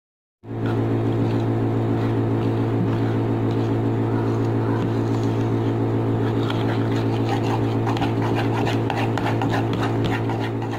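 A loud, steady low hum starts abruptly about half a second in and runs unchanged. Over it, in the second half, a metal utensil scrapes and taps in a bowl as crumbly rice-flour dough is stirred.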